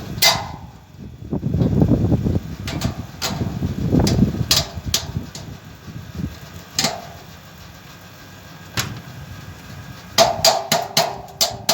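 Metal satellite-dish parts and hardware knocking and clinking as they are handled and fitted, with rustling in between. Near the end comes a quick run of sharp clinks that leave a short metallic ring.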